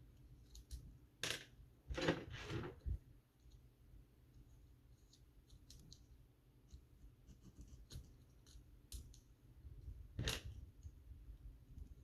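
Plastic Bionicle and Lego pieces clicking and popping apart as a figure is disassembled by hand, with light handling clicks in between. The louder snaps come about a second in, around two to three seconds in, and about ten seconds in.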